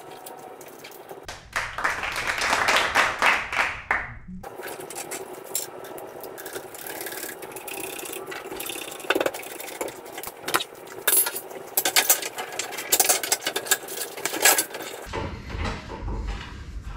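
Duct tape pulled off the roll in one long rip that stops abruptly, followed by rustling, crinkling and small clicks as the tape is pressed into place.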